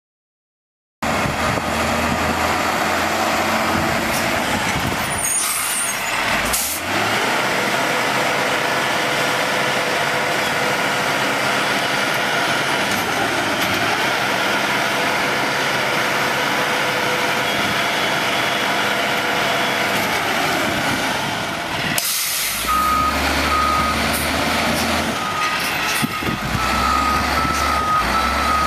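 Diesel engine of a Crane Carrier Company garbage truck with a Maxon manual side-loader body running steadily, after about a second of silence, with a couple of short sharp sounds around five and six seconds in. From a little past twenty seconds the engine rumbles deeper and a back-up alarm beeps repeatedly.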